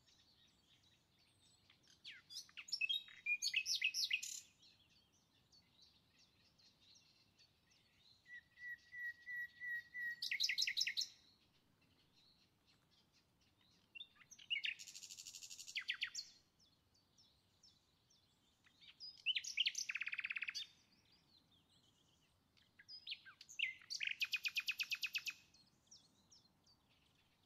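A small songbird singing five short phrases of quick, high, trilled chirps, a few seconds apart.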